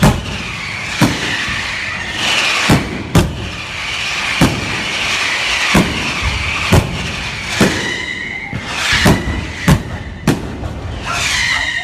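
Fireworks display: loud aerial shell bangs going off about once a second, with a steady hiss and wavering whistles between them.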